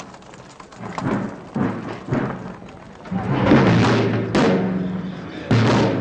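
Music of deep struck percussion, like timpani: a run of hits that ring and fade, soft at first and louder and sharper from about halfway through.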